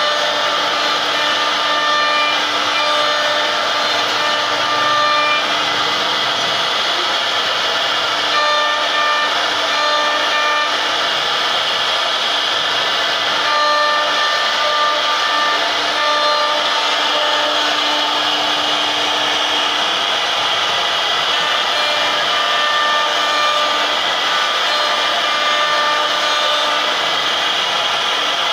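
CNC router spindle running at high speed while its bit carves a decorative pattern into a wooden panel: a steady, loud whir and cutting hiss. Its whining tones come and go every second or so as the bit moves along the cuts.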